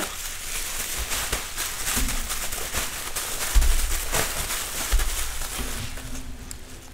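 Bubble wrap crinkling and rustling as it is folded around a flat LCD panel, with many small crackles and a couple of dull bumps from handling on the desk about halfway through.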